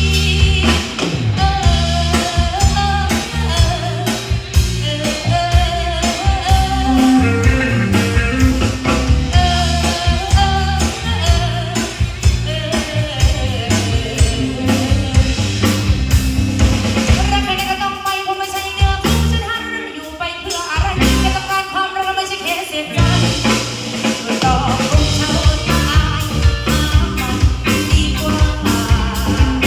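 A live band playing a song, with a melody line over drum kit and bass guitar. The drums and bass drop out for a few seconds in the middle, then come back in.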